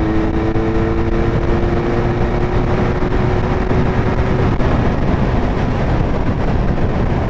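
Loud wind rush over the microphone and the Benelli Leoncino 500's parallel-twin engine running at motorway speed in sixth gear. A steady engine tone climbs slightly in pitch, then fades out about four and a half seconds in.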